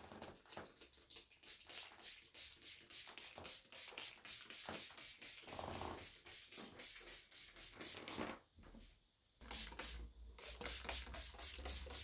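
Trigger-spray bottle of air freshener being squeezed rapidly, giving short hissing puffs at about four a second, with a pause of about a second before the puffs resume.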